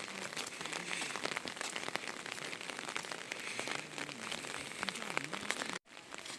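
Rain falling steadily, with many separate drops ticking on nearby surfaces.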